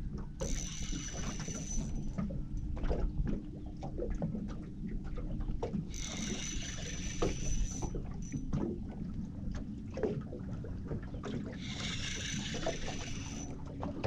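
Spinning reel whirring in three short bursts of a second or two while a hooked fish, which the angler takes for a snapper, is being played. A steady low rumble of wind and water runs underneath.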